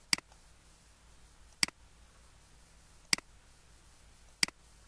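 Computer mouse clicked four times, about a second and a half apart, each sharp click followed right away by a softer one as the button is released.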